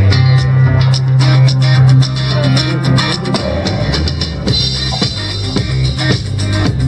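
Instrumental intro of a rock-style song: drum kit with a steady beat, bass and guitar.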